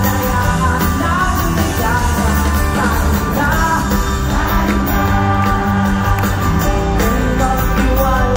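Live rock band playing a song, with a singer over a steady bass and band backing.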